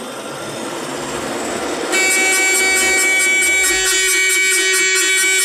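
Road traffic noise, then about two seconds in a vehicle horn blares and is held loud and steady through the rest.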